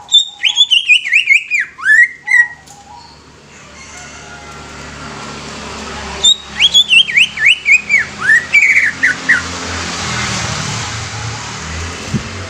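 Cucak ijo (green leafbird) singing two quick phrases of whistled notes, one at the start and one about six seconds in. Each note sweeps downward and each phrase steps lower in pitch. A steady background hiss grows louder between and after the phrases.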